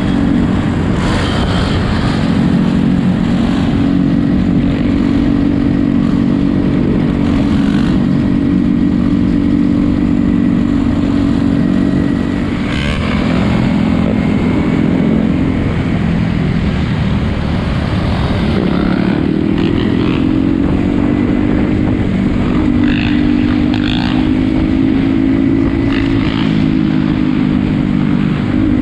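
A small motorcycle-type engine runs steadily at an even pace, close by. Its pitch dips and shifts slightly a little past the middle.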